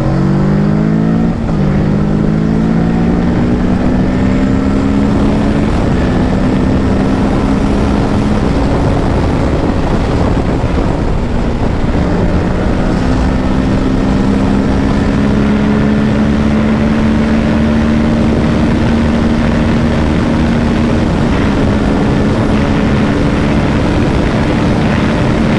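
Kawasaki Ninja 650's parallel-twin engine at full throttle on a top-speed run, its pitch climbing and then dropping at upshifts about a second and a half in, at about six seconds and near twelve seconds, then rising slowly as speed builds toward about 200 km/h. A loud rush of wind runs under it throughout.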